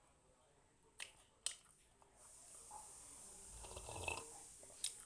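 A person eating close to the microphone: two light clicks, then a couple of seconds of faint chewing and breathing noise.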